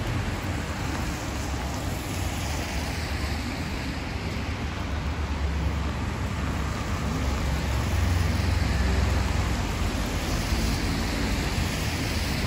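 Rainy city street ambience: a steady hiss of rain and car tyres on wet pavement over a low traffic rumble, swelling a little about two-thirds of the way through.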